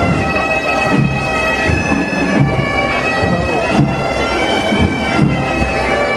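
Galician bagpipes (gaitas) playing a melody in long held notes.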